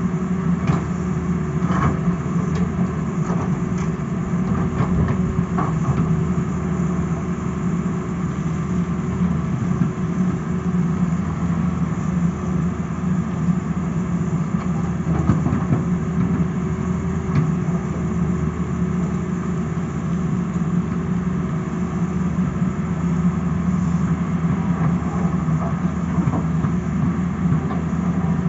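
Tata Hitachi crawler excavator's diesel engine running steadily as it digs, with a thin higher tone above the engine drone and a few light knocks in the first several seconds.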